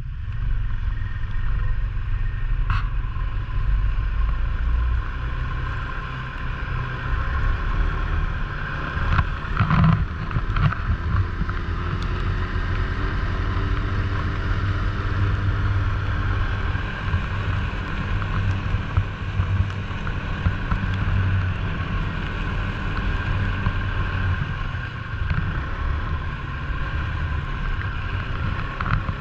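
Snowmobile engine running steadily while riding under way, with a brief louder knock about ten seconds in.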